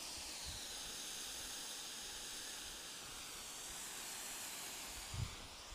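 Homemade smoke bomb burning with a steady, faint hiss, with a brief low bump near the end.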